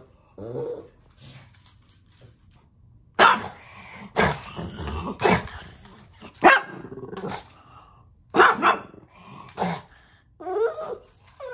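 Pug barking: about seven sharp single barks, roughly a second apart, with a short whiny grumble near the start and again near the end.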